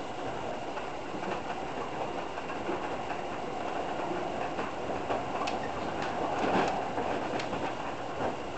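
Toei Shinjuku Line electric commuter train heard from inside the car as it runs: a steady rumble of wheels on rail with scattered clicks, which come thicker and a little louder about six to seven seconds in.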